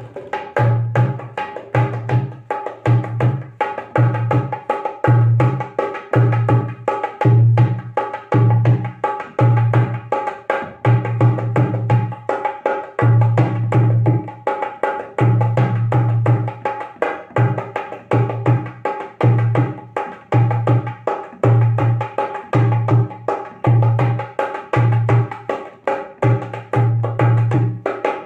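A Sheesham wood nut-bolt dholak played in a steady rhythm. Deep strokes on the bass head come about once a second, under quick, crisp strokes on the treble head that ring.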